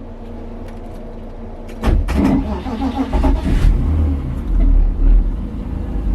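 BMW E36 car engine: a low steady hum, then about two seconds in the engine gets loud and rumbles, its revs rising and falling.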